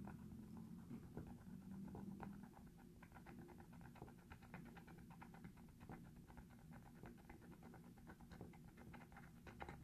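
Near silence with faint, irregular little ticks and scratches: the plastic tip of a Laser Bond liquid-plastic applicator pen dabbing and rubbing along a crack in a clear vinyl soft-top window.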